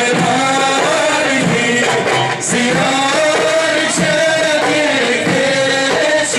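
Live music: men's voices singing with frame drums beating along.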